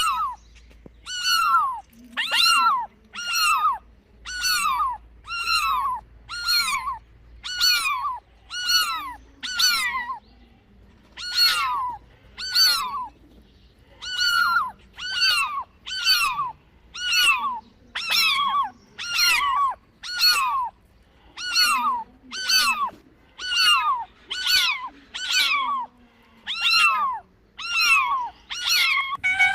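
A kitten meowing over and over, about one call a second. Each meow is high-pitched and falls in pitch.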